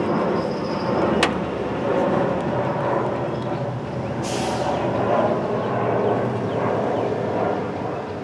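Steady rumble of vehicle noise, with a sharp click about a second in and a short hiss a little after four seconds.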